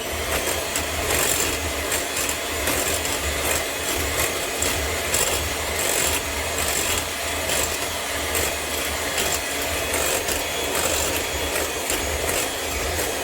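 Cake batter being mixed in a bowl after an egg is added: a continuous rough scraping and rubbing.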